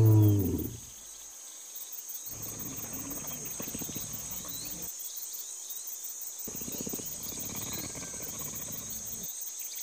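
Insects chirring steadily at a high pitch, with a low rumble that comes and goes. A lion's low growl fades out in the first second.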